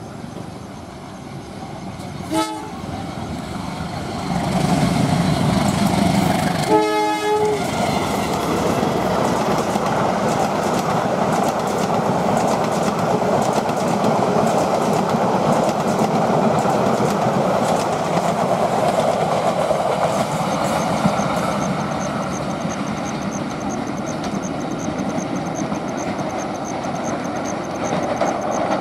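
Diesel-hauled Indonesian passenger train sounding its horn, a short note about two seconds in and a longer one about seven seconds in, then passing close by with a long, steady rush of wheels running on the rails.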